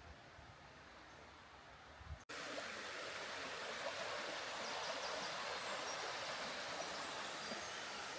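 Steady rush of a flowing stream, cutting in suddenly about two seconds in after a faint, quiet stretch.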